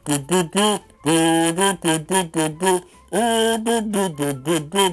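Plastic kazoo buzzing out a tune in short rhythmic notes, with a couple of longer held notes.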